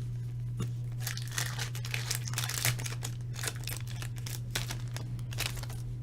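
Trading-card pack wrappers being torn open and crinkled by hand: a run of irregular crackles and rips.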